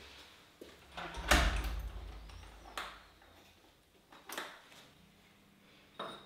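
Lid of a Rohde top-loading electric kiln being unlatched and swung open. A click, then a heavy clunk with a low rumble a little over a second in, followed by a few lighter knocks as the lid settles and things are handled on the kiln's rim.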